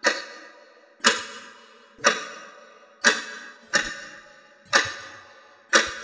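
Clock ticking about once a second, each sharp tick followed by a ringing tail that fades before the next.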